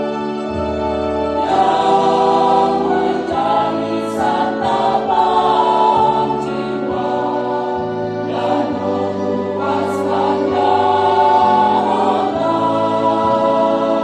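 Church choir of mostly women's voices singing a hymn, the notes held and moving from one to the next every second or so.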